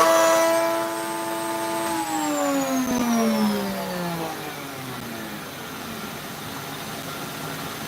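Router in a router table, fitted with a spiral bit, running free at a steady high pitch, then switched off about two seconds in and spinning down, its pitch falling steadily for several seconds. A dust extractor keeps running underneath.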